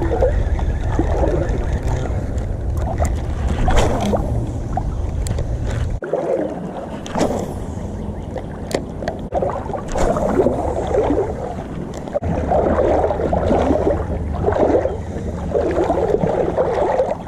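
Fast creek current rushing and splashing, with wind rumbling on the microphone, louder in the first few seconds and again in the last few.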